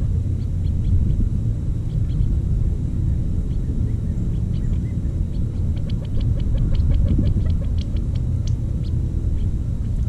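A low steady rumble, with faint quick ticks that come thickest from about six to nine seconds in, as doves peck seed off bare dry ground.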